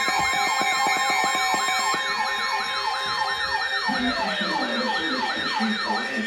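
Electronic yelp siren sounding as an alert tone, sweeping rapidly up and down about three to four times a second over steady held tones. About two-thirds of the way through, a low pulsing tune comes in and the sweeps fade out.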